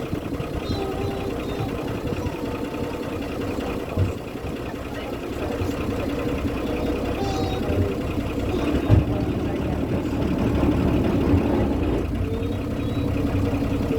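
Tour boat's engine running steadily with a low hum, and faint voices underneath.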